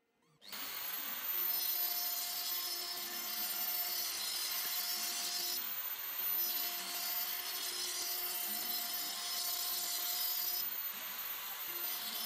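Hobby CNC router (Euro-Makers Aureus 3X) with a 3.175 mm end mill cutting end-grain oak at 3 mm pass depth: a steady spindle whine under the hiss of the bit chipping wood, which rises and falls a little as the cut moves. It starts about half a second in.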